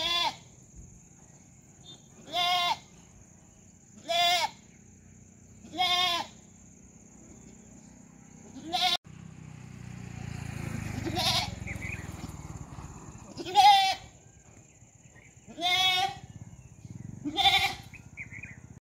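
Goat bleating repeatedly: about nine quavering bleats, each about half a second long, roughly two seconds apart. A stretch of noisy hiss rises and fades in the middle.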